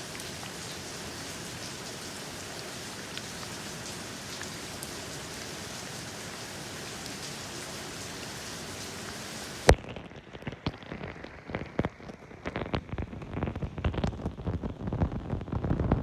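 Steady rain falling, an even hiss. About ten seconds in a sharp click cuts it off, and the sound turns muffled and uneven: a low rumble with irregular knocks, wind buffeting the microphone.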